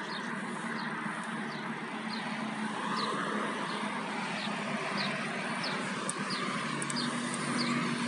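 Wind and rolling noise from riding a bicycle on a paved path, with a steady low hum and a short high chirp that repeats about every three-quarters of a second.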